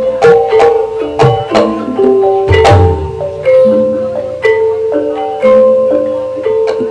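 Gamelan music for an ebeg dance: mallet-struck keyed instruments ringing out a quick, busy melodic pattern, with a few deep drum strokes, the heaviest about two and a half seconds in.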